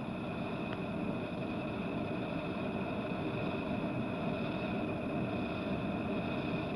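Thermit rail-welding charge burning in its crucible after ignition: a steady rushing noise that holds level without a break.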